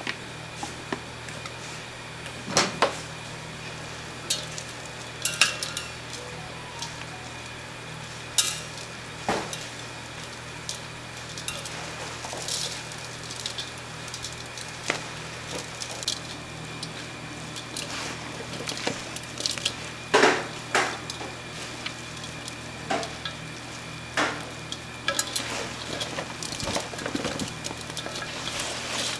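Kitchen clatter: utensils and dishes knocking and clinking at irregular intervals, over a steady background hum.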